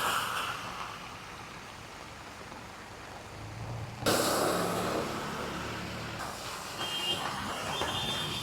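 Heavy rain and traffic on a wet street: a steady hiss of rain and tyres, turning suddenly louder about four seconds in as a vehicle engine rumbles by, with faint short high beeps near the end.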